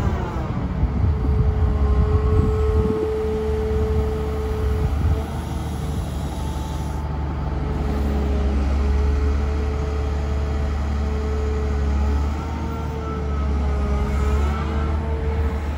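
Caterpillar M322D MH wheeled material handler's diesel engine running under load with a steady low drone, while its hydraulic system whines at a pitch that rises and falls as the upper structure slews and the boom moves.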